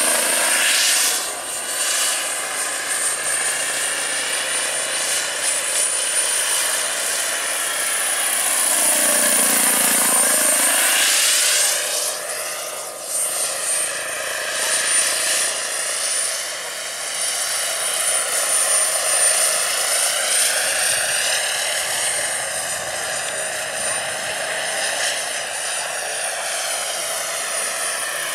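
Radio-controlled Bell 206B JetRanger III scale helicopter flying, its model turbine engine giving a steady high-pitched whine over the rotor's whooshing. The tone sweeps up and down as the helicopter banks and passes back and forth.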